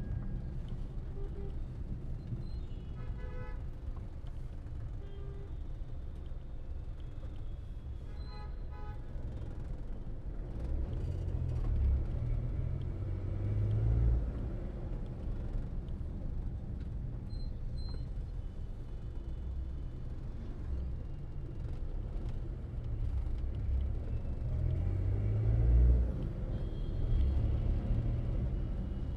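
Engine and road rumble heard from inside a taxi moving in slow, dense city traffic, swelling twice as the traffic moves. Short horn toots from other vehicles sound a few seconds in and again about eight seconds in.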